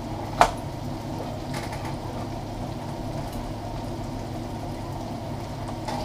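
A chef's knife knocks once on a cutting board about half a second in, cutting celery, over a steady low hum in the kitchen.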